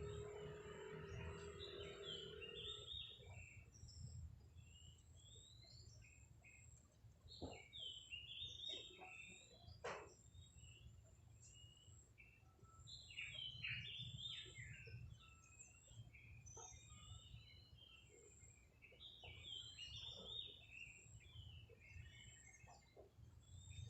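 Birds chirping faintly: short high chirps in quick clusters, coming and going, over a low steady hum.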